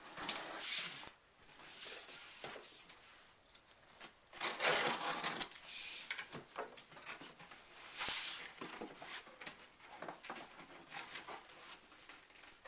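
Packaging being handled as a box is opened: irregular rustling, scraping and small knocks of cardboard and plastic. The longest, loudest scrape is about halfway through.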